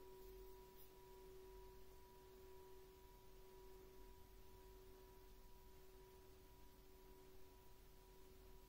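Small hand-forged singing bowl ringing on, resting on a flat palm so it can swing freely: a faint, long, steady ring of a low tone with a weaker higher overtone above it.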